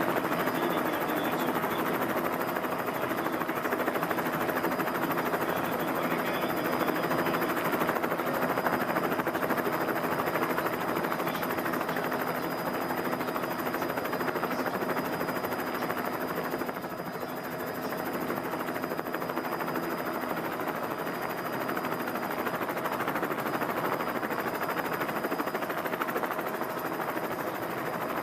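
Steady outdoor din at the race circuit with a helicopter hovering overhead; the noise dips briefly about two-thirds of the way through.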